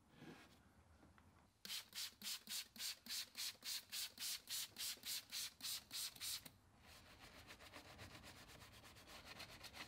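Bristle detailing brush scrubbing back and forth on a ribbed air intake hose wet with cleaner, in steady strokes about three or four a second, then switching to quicker, lighter scrubbing for the last few seconds.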